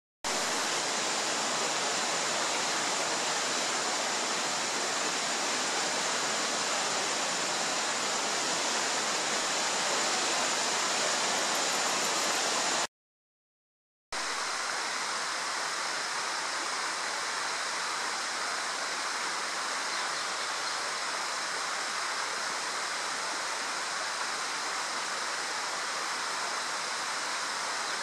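Steady, even rushing outdoor noise with several high ringing tones held above it. It cuts out abruptly for about a second near the middle, then resumes unchanged.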